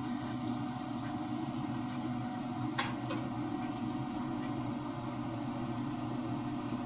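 A steady low machine hum, with one sharp click about three seconds in.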